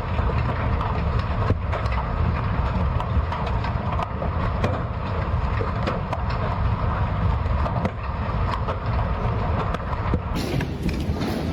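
Large hailstones pounding down in a dense, continuous clatter, with many sharper single impacts standing out. About ten seconds in, the sound turns brighter and hissier.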